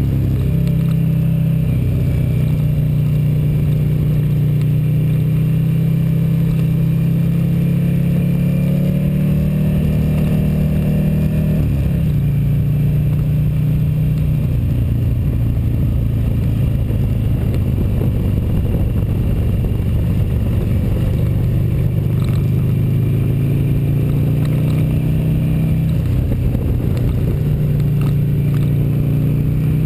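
Motorcycle engine under way, heard from on board: its pitch climbs for about ten seconds, drops sharply about twelve seconds in, then climbs again and drops once more near the end.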